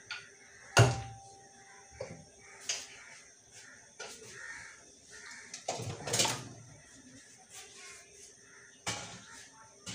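Scattered knocks and clatter of kitchen work at a counter while a pumpkin is cut up, about half a dozen in all. The loudest knock, about a second in, is followed by a brief metallic ring, and a longer rattling clatter comes a little past the middle.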